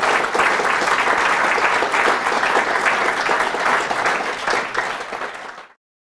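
Audience applauding, a dense steady clapping that cuts off suddenly near the end.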